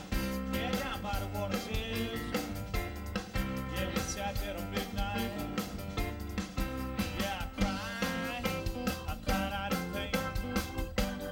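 Blues band playing live: an electric guitar plays gliding, bending notes over a steady drum beat and bass.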